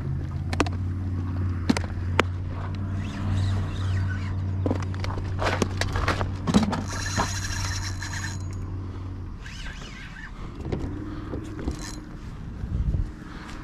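A steady low engine hum that stops about nine seconds in, under scattered clicks and knocks of gear being handled in a plastic kayak, including a plastic tackle box.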